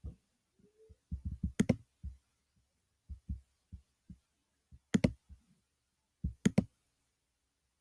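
Handling noise from hands on plush toys and the recording device: scattered soft, low thumps with three sharp clicks spread through.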